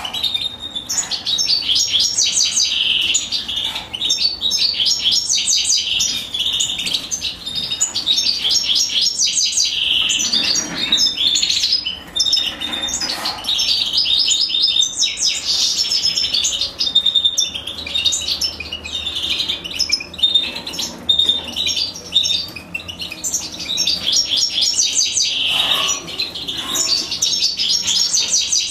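European goldfinch nestlings begging: a steady stream of rapid, high, thin chirps, the sound chicks make while being fed by the female.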